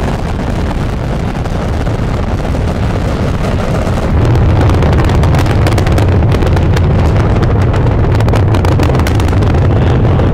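Space Shuttle lifting off: the rocket engines' steady, deep roar, growing louder about four seconds in, with a ragged crackle on top.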